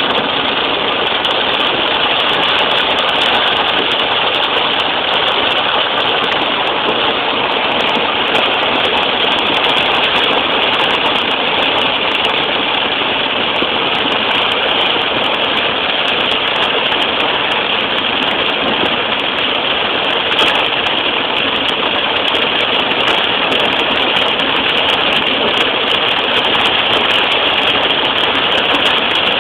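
Steady road noise inside a moving car: engine and tyres running on a rain-wet road.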